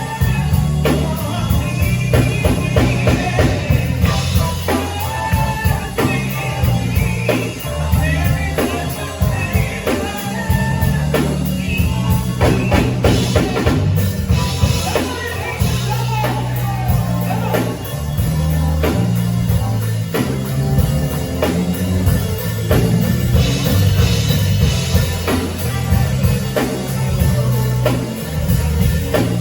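Live band music with drum kit, a prominent moving bass line and guitar, with singing at times.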